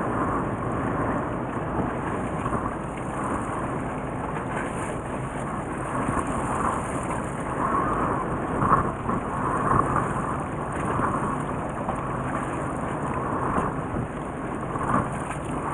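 Steady rumble of a fishing boat under way, its engine running under a wash of wind and water noise.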